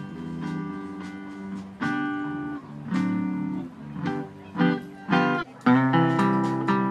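Live instrumental trio: an archtop electric guitar plays chords and melody over upright bass and drums. A few short, sharp chord stabs sound about four to five seconds in, then the band comes back louder and fuller.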